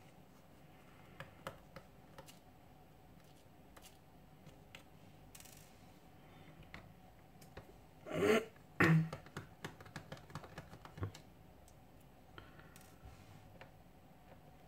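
Precision screwdriver unscrewing the tiny screws of a smartphone's back housing: faint, irregular clicks and scrapes of the driver tip in the screw heads, with two louder handling noises about eight and nine seconds in.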